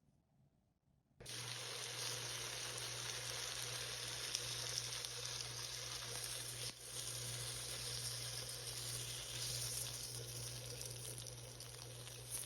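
Food sizzling in a hot pan, starting suddenly about a second in and running as a steady hiss with a low hum underneath.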